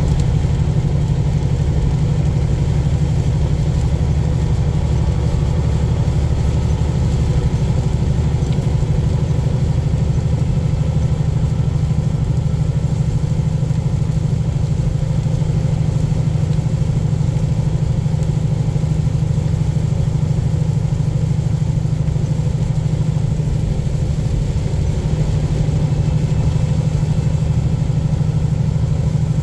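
Semi-truck's diesel engine running steadily on the road, a constant low drone with road noise over it.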